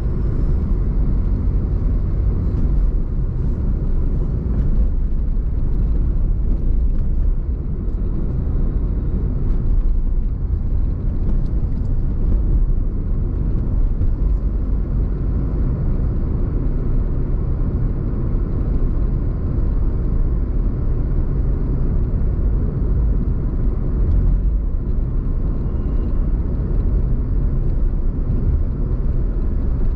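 A car being driven: a steady low rumble of engine and road noise that holds throughout, with a few faint ticks.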